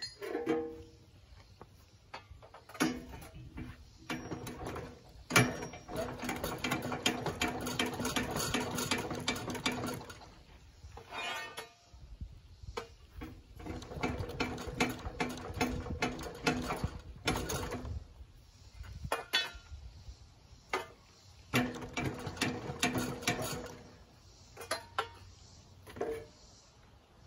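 A ratchet clicking rapidly in three long bursts, with scattered single clicks and knocks in the pauses between.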